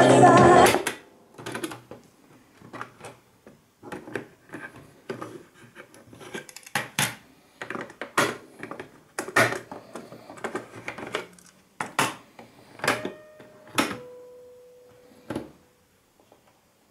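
Music from a Sony CFS-W365 double-cassette boombox cuts off under a second in as a transport key is pressed. It is followed by a string of separate mechanical clicks and clunks from the cassette keys and spring-loaded deck doors as tapes are ejected and loaded.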